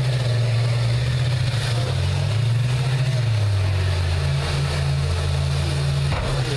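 School bus engines running and revving in a demolition derby arena, their low hum rising and falling in pitch, with crowd chatter underneath.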